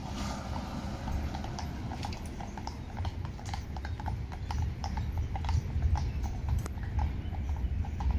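Hooves of a pair of carriage horses clip-clopping on a paved street, a quick run of several clops a second that grows louder past halfway, over a steady low rumble.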